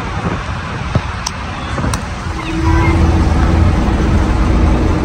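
Moving bus heard from inside: engine and road noise, with a few sharp clicks in the first two seconds. About two and a half seconds in, the engine grows louder with a steady drone, as the bus pulls harder.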